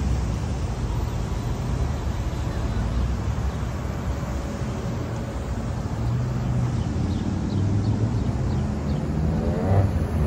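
Road traffic on a wide city boulevard: a steady rumble of passing cars. A brief wavering pitched sound rises and falls near the end.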